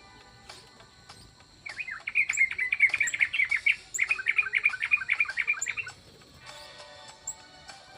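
A small songbird twittering: two fast runs of chirps, each about two seconds long, starting about two seconds in.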